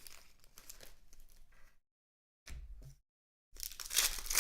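Trading cards and their foil pack wrappers being handled, with faint rustling and crinkling. The sound cuts out to dead silence twice midway, then a louder crinkle comes near the end.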